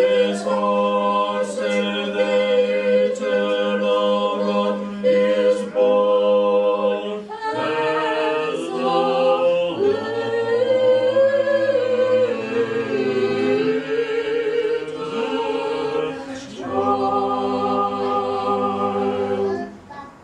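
Small mixed choir of men's and women's voices singing Orthodox liturgical chant a cappella. For the first seven seconds a low note is held under the moving upper voices. Then a deeper bass part comes in under fuller chords, and the piece ends on a long held chord near the end.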